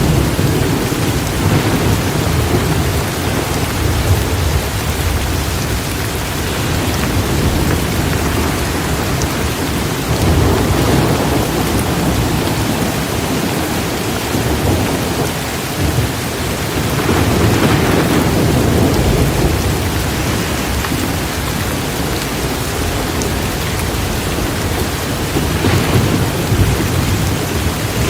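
Rain pouring down steadily with low rumbling thunder underneath, the rumble swelling a few times.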